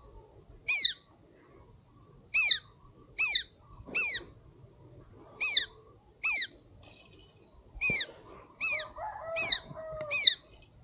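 Collared falconet calling: a shrill, high-pitched note that slides downward, repeated about eleven times at uneven intervals of half a second to a second and a half.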